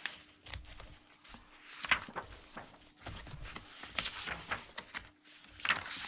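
Pages of a thick softcover book being turned by hand: several short bursts of paper rustling and flapping, the loudest about two seconds in.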